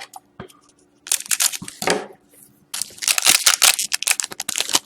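A hockey card pack wrapper being torn open and crinkled by hand, in two spells of crackling separated by a short pause.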